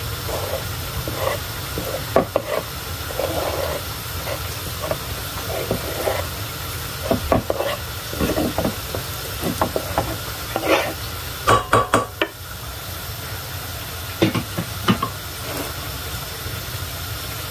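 Diced raw chicken being scraped off a wooden cutting board into a stainless-steel pot, with scattered knocks and scrapes of the board and a wooden spoon against the pot, several close together about two thirds of the way through. A steady low hum and hiss runs underneath.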